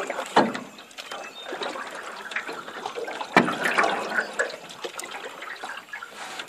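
Close handling noise in a small aluminium john boat: rustling with two sharp knocks, about half a second in and again about three and a half seconds in.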